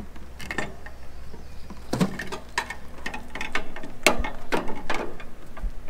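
A series of irregular clicks, knocks and rattles from a homemade sheet-metal shroud being handled and opened on the front of a window air conditioner unit.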